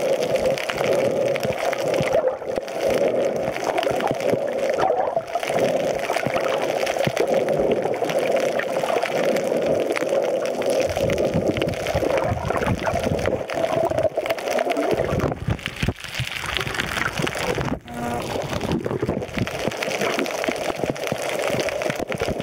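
Water gurgling and sloshing around an underwater camera, with fine crackling throughout.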